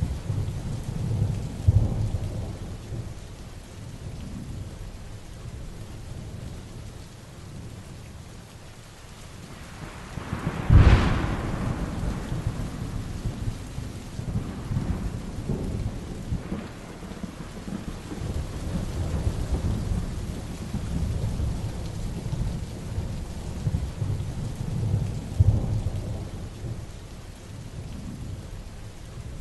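Heavy rain falling steadily with low rolling thunder. A sharp thunderclap comes about eleven seconds in, followed by long rumbling.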